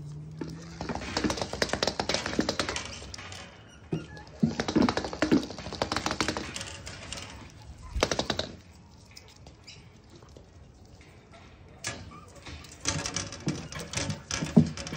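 Cavoodle puppies' claws clicking and pattering on a hard floor as they scamper and play, in busy bursts with a quieter lull in the middle.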